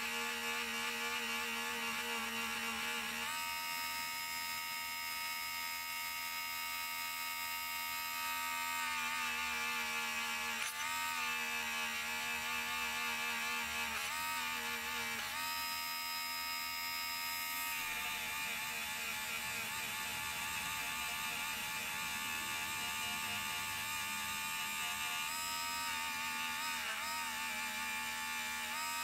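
Small handheld Harbor Freight rotary tool whining steadily as its polishing wheel buffs scratches out of a gold grill. Its pitch steps up and down several times.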